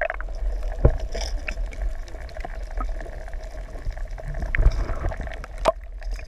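Water rushing and gurgling around a submerged camera, with a steady low rumble and a faint steady hum underneath, and three sharp knocks.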